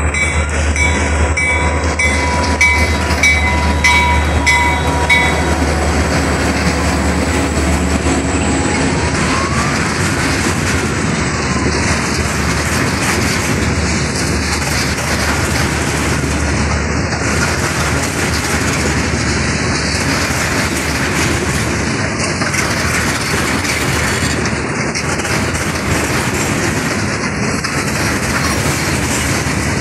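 A freight train passes at close range. First the diesel locomotive goes by, its engine a deep hum, with a repeating tone over the first few seconds. Then a long string of tank cars rolls past with a steady clickety-clack of wheels over the rails and a brief squeal about ten seconds in.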